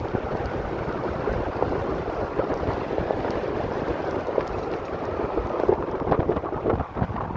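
Several Jeeps driving along a gravel road, their engine and tyre noise mixed with wind rumbling on the microphone.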